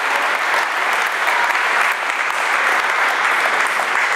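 Spectators applauding steadily in a crowd, clapping after a point is won in a table tennis match.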